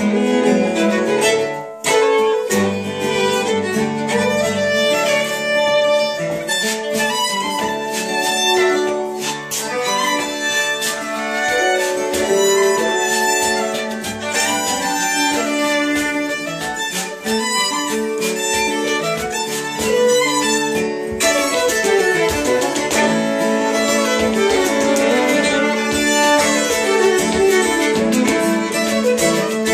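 A five-string fiddle and a ten-string Hardanger fiddle playing a fiddle tune together over strummed acoustic guitar.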